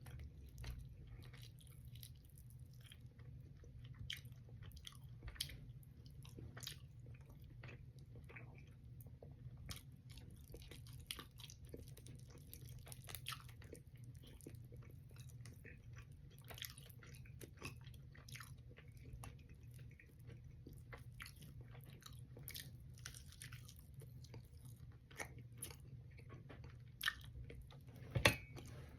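Close-miked chewing of fish, with soft wet mouth noises and many small clicks, over a steady low hum. A sharper knock comes about two seconds before the end.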